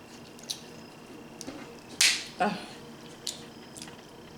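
A loud, short slurp of meat being sucked out of a crab leg about two seconds in, with a few soft clicks of shell being handled around it.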